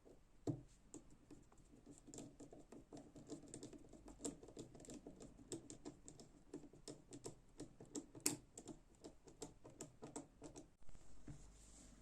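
Faint, quick, irregular run of small clicks and taps from handling an Enlan M011 folding knife and its small parts, with one sharper click a little past the middle.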